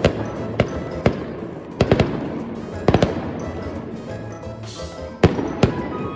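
Aerial fireworks bursting overhead: a run of sharp bangs, several coming in quick pairs, with crackling between them.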